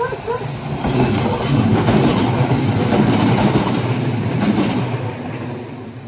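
An electric train passing over the level crossing close by, its wheels running on the rails; the sound builds about a second in, stays loud for several seconds and fades near the end.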